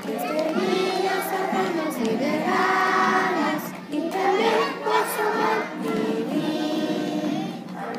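A group of young children singing together in unison, holding long notes.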